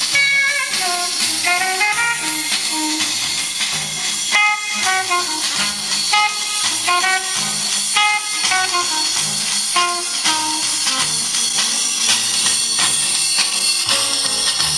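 Music playing back from a cassette on a Sansui SC-1110 stereo cassette deck: a melody line of separate notes over a steady drum beat.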